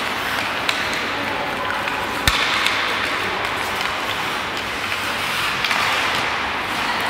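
Ice hockey play: a steady wash of skates scraping the ice and arena noise, with scattered clicks of sticks on the puck and one sharp crack about two seconds in.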